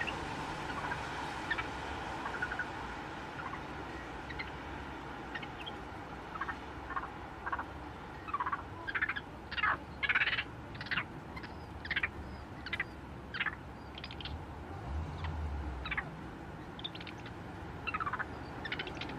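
Gray langurs wrestling, giving a rapid series of short, high calls: about a dozen in quick succession in the middle, and a few more near the end. A steady low hum runs underneath.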